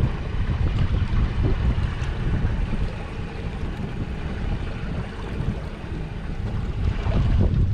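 Wind buffeting the microphone aboard a small fishing boat on the water: a steady, ragged low rumble with the boat's motor and water noise underneath, a little louder near the end.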